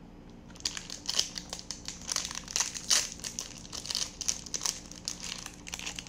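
A crinkly plastic candy wrapper being opened by hand. It gives dense, irregular crackling and rustling that starts about half a second in.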